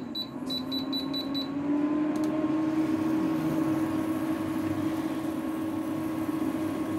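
Induction cooktop beeping, a quick run of short high beeps for about the first second and a half as its buttons are pressed, then a steady electric hum that rises slightly in pitch and holds.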